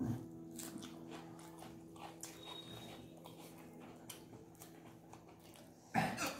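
Close-up eating sounds: chewing and lip smacking with small scattered clicks as fingers work rice and curry on the plates. A louder short sound comes at the very start and another about six seconds in.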